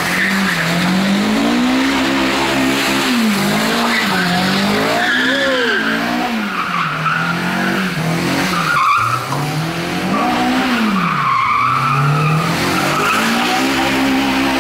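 Honda S2000 doing donuts: its four-cylinder engine revs up and down every second or two while the tyres squeal on the asphalt. The revs drop briefly about nine seconds in.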